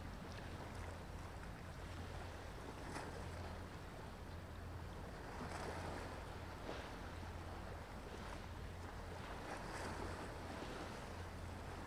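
Small sea waves lapping and splashing over a steady low hum, with a light wash of wind.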